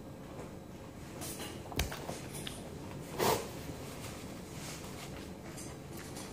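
Steady room hum with handling noises as a person sits down at a table: a sharp knock a little under two seconds in, then a brief louder noise just after three seconds.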